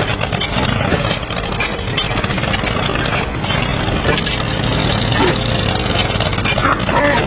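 An engine running steadily at idle, with a few light clicks and knocks.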